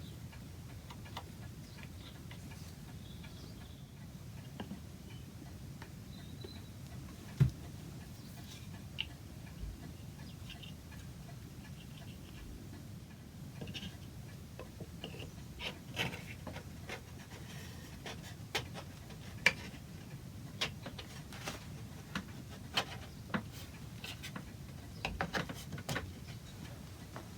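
Sporadic light knocks and clicks of wood and tools being handled at a workbench, with one sharper knock about seven seconds in and a busier run of taps in the second half, over a low steady hum.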